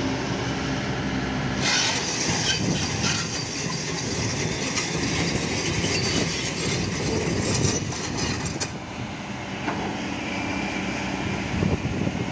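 Heavy diesel engines of a truck and an excavator running hard under load, with a spell of hissing and metallic clatter from about two seconds in that stops abruptly near the end.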